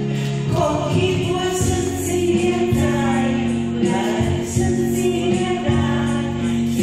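A man and a woman singing a duet into microphones over backing music, the voices coming in about half a second in.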